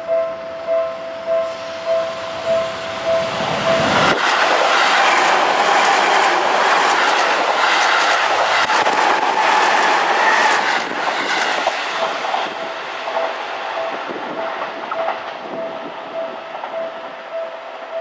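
Level-crossing warning bell ringing a steady repeating ding, a little under two strikes a second. About four seconds in, a Seibu 20000 series eight-car electric train passes close by, its wheels clacking over rail joints. It drowns out the bell for about seven seconds, then fades away as the bell rings on.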